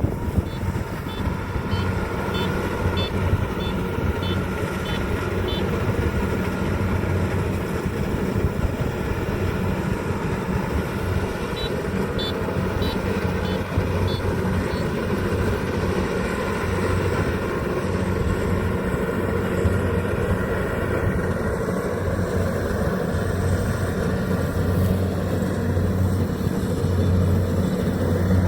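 Kubota rice harvester's engine running steadily under load.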